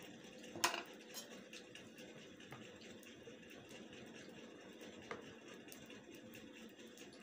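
Faint steady hiss with scattered small sharp clicks: a wood fire burning in a clay chulha and a metal spoon scooping ghee from a container.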